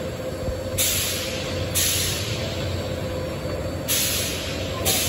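Paper-tube making machine running with a steady hum, its pneumatic cutting head letting out four short hisses of compressed air in two pairs, each about a second apart.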